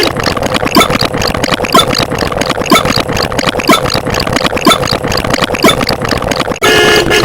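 A mechanical, engine-like running sound made of dense rapid clicks, with a stronger knock about once a second; it cuts off suddenly near the end.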